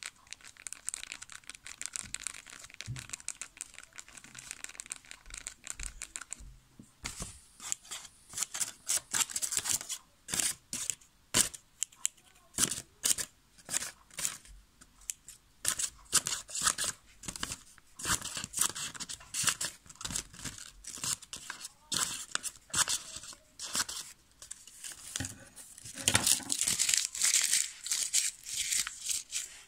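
Scratching and rapid tapping on a roll-on deodorant bottle: a dry scraping rustle for the first several seconds, then dense runs of sharp ticks, loudest a little before the end.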